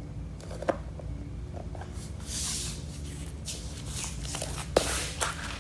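Paper release liner being peeled off the tacky adhesive back of a self-adhesive vinyl plank: a crackling, tearing hiss that starts about two seconds in and comes again in stretches, with a couple of sharp taps as the plank is handled. A low steady hum underneath.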